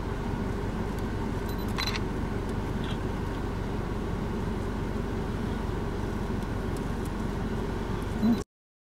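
A vehicle engine idling steadily. There is a short click a little under two seconds in, and a brief louder knock near the end, just before the sound cuts off suddenly.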